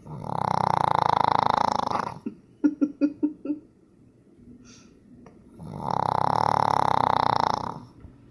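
A pug snoring: two long, loud snores about five and a half seconds apart, the first trailing into a quick run of six or seven short stuttering snorts. This kind of snoring is typical of the breed's short, flat-faced airway.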